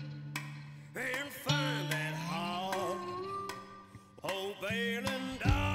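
Background music: a song with a sung melody over a steady instrumental backing, dipping briefly about four seconds in.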